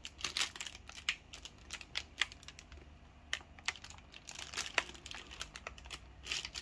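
Cellophane-wrapped pasties and instant-noodle packets being handled and shifted on a counter: irregular light crinkles and clicks of the plastic wrappers.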